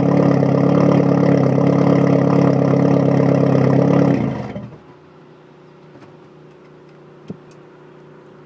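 The 2.0 8-valve four-cylinder engine of a 1994 VW GTI, fitted with a blown Garrett T3/T4 turbo, running steadily and loudly. It is switched off about four seconds in and runs down within a second. A single faint click follows near the end.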